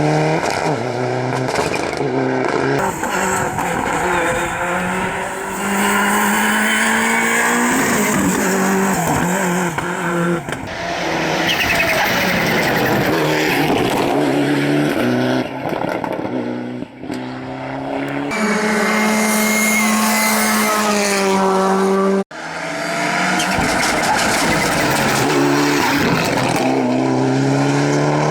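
Rally cars driven flat out on a stage, engines revving hard and dropping back through gear changes and lifts. Sudden cuts from one car to the next happen several times.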